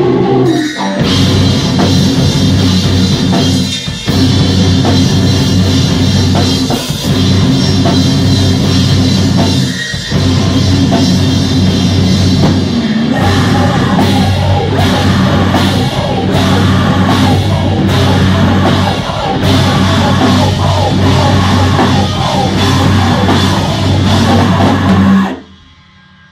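Rock band playing loudly live: drum kit and electric guitar, with a singer on a microphone. The music cuts off suddenly about a second before the end.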